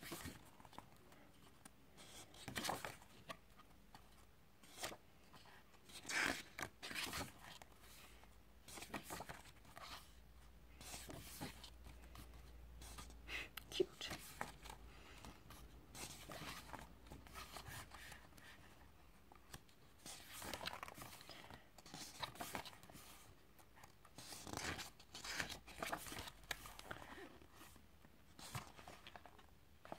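Glossy pages of a CD album's photobook being turned by hand: short, quiet paper rustles and flaps at irregular moments every few seconds.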